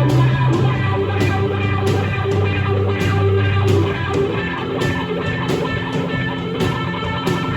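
Rock band playing an instrumental passage with no vocals: electric guitar over held bass notes, with drum and cymbal hits about twice a second.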